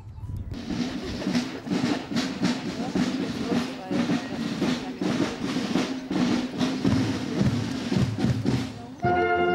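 Marching band drums playing a street beat of snare and bass drum. Near the end the band's brass comes in with a loud held chord.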